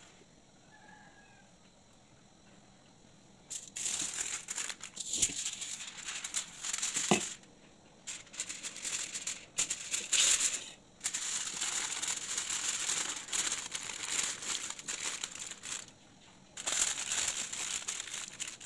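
Fish sizzling and crackling on a grill: a dense crackle that sets in a few seconds in and breaks off and resumes several times.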